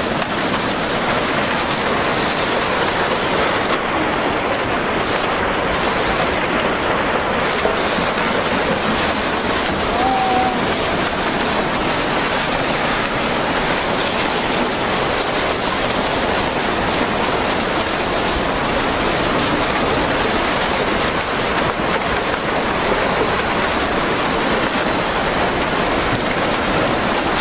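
Steady, dense rushing of tsunami floodwater churning wreckage and debris as it surges through a town.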